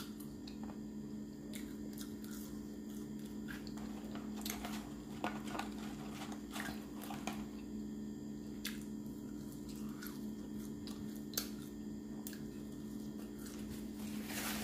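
A person chewing and eating french fries, with scattered soft clicks and crackles from the mouth and from handling the fries, over a steady low hum.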